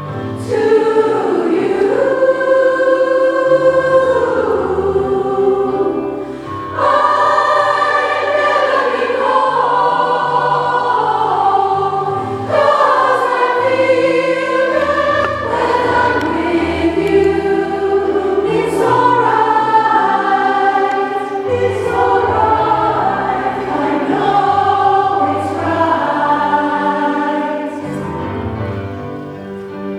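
A choir singing in harmony, in sustained phrases of a few seconds each, with short breaths between phrases.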